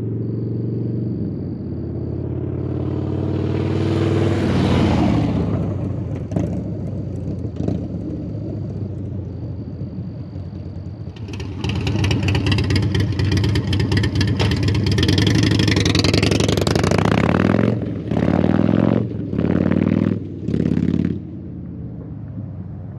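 Harley-Davidson Dyna Twin Cam V-twin running through an SP Concepts Lane Splitter exhaust, loud and deep at idle. It revs up and falls back once in the first few seconds, revs hard for several seconds from about halfway, then gives three short throttle blips before settling back to idle.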